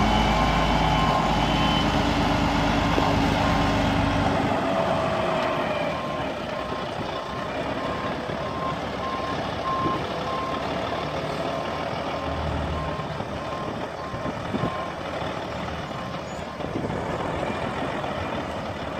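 Diesel engine of a concrete mixer truck running close by, loud for the first four seconds or so and then fainter as the truck moves off. A truck's reversing alarm beeps at an even pace in the background, on and off.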